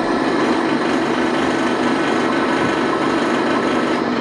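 Milling machine spindle running steadily with a twist drill cutting into a laser-cut steel part clamped in a vice.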